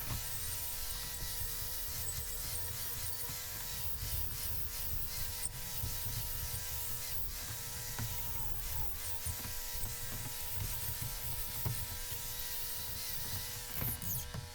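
Wire brush scrubbing slag off a fresh E7018 stick-weld bead, in irregular scratchy strokes, over a steady machine hum.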